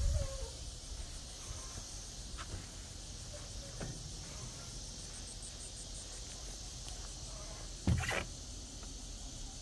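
Steady high-pitched chirring of insects such as crickets outdoors, with a brief thump about eight seconds in.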